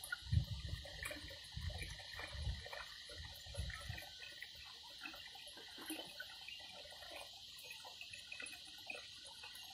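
Thin stream of water trickling from a plastic jerry can's spout into a concrete basin, faint and steady, with a few low bumps in the first few seconds.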